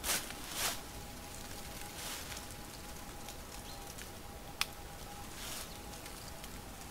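Fir branches rustling in a few short bursts as needles are picked from them, the loudest two right at the start, with one sharp click a little before five seconds in, over quiet outdoor ambience.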